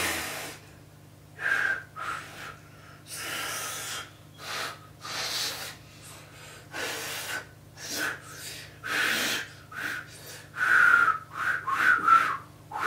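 Finger-whistle attempts: a series of short, breathy blows through fingers held at the lips, mostly rushing air with a thin, wavering whistle note breaking through. The note comes through more often near the end, as the whistle starts to catch.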